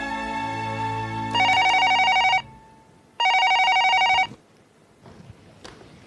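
An office telephone rings twice. Each ring lasts about a second and is a rapid electronic trill. Soft background music fades out just as the first ring begins, and a single click comes near the end.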